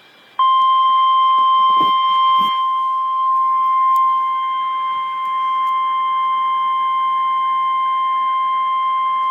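NOAA Weather Radio warning alarm tone: a single steady, loud high-pitched tone that starts about half a second in and holds without a break. It signals that a weather warning is about to be broadcast.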